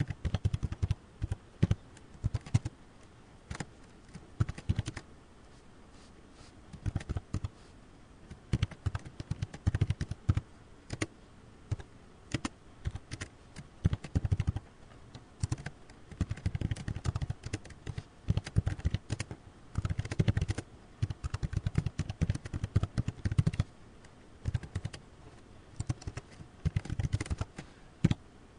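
Typing on a computer keyboard: quick runs of keystrokes in bursts, separated by short pauses of a second or so.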